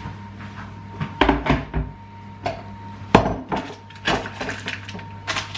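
Kitchen cupboard and crockery being handled as a bowl is fetched: a string of sharp knocks and clinks, the loudest about three seconds in.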